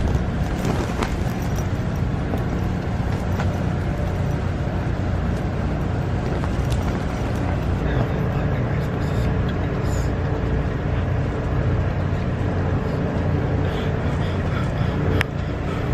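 Steady low rumble of wind buffeting the camping tent and the microphone, with a few faint ticks.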